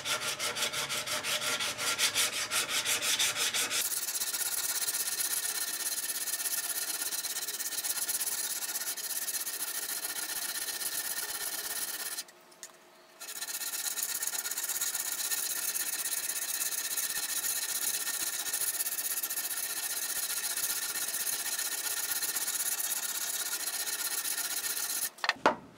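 Abrasive pad rubbed by hand back and forth over a wet steel drawknife blade lubricated with water and oil soap, working pits out of the metal. Fast, even strokes for the first few seconds, then a steady scrubbing with a short break about halfway, and a couple of knocks near the end.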